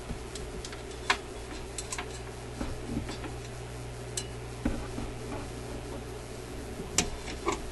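Scattered light clicks and taps of small mechanism parts as the record player's idler wheel is worked into place under the platter by hand, over a steady low hum.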